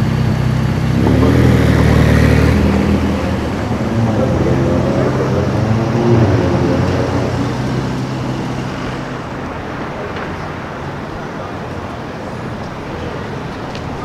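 A supercar's engine accelerating on a city street, its pitch rising and changing, then fading away about eight seconds in, leaving the steady noise of street traffic.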